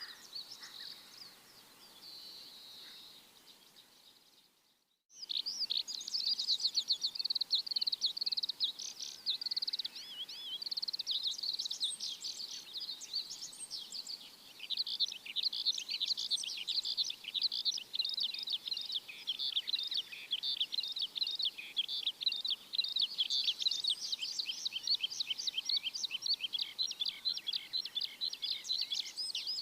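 Birds chirping: faint high chirps at first, then a brief break about five seconds in, after which a dense, rapid run of high chirps goes on without pause.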